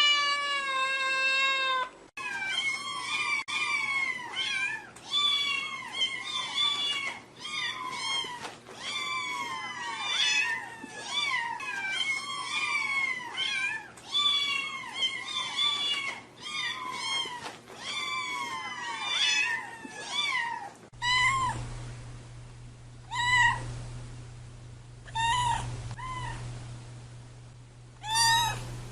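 Cats meowing: a long, held meow, then a rapid string of short, high-pitched, overlapping meows. About two-thirds of the way through, this changes to single meows a second or two apart over a steady low hum, ending with another long meow.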